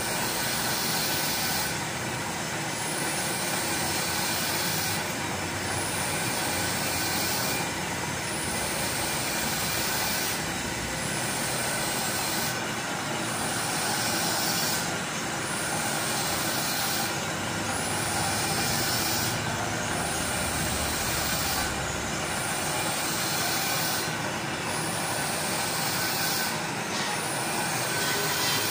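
Metal lathe running and turning a screw conveyor shaft, the cutting tool taking a cut in the spinning metal: a steady machine whir and cutting hiss.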